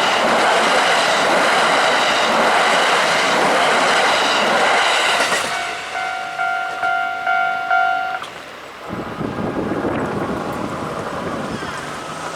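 Kintetsu Nara Line electric train passing over a level crossing, its wheels clattering on the rails while the crossing's warning bell rings. The train noise ends about five seconds in, and the bell rings on alone, about two strikes a second, until it stops about eight seconds in. A road vehicle then moves off over the crossing.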